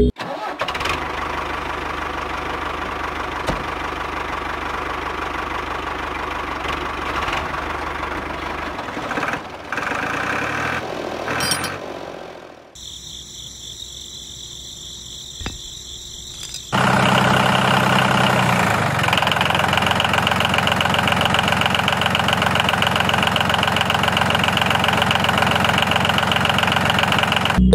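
A motor running steadily in three stretches. The sound changes abruptly about 13 seconds in, to a quieter run with a high whine, and again about 17 seconds in, to a louder run with a low hum.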